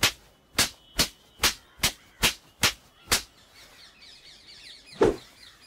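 A rapid series of eight sharp slaps, about two and a half a second, as a boy is struck across the face again and again. Faint bird chirping follows, then a single heavier thump about five seconds in.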